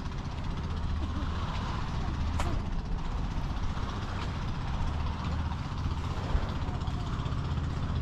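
A motor running with a steady low hum over an even wash of wind and surf noise; a single sharp click about two and a half seconds in.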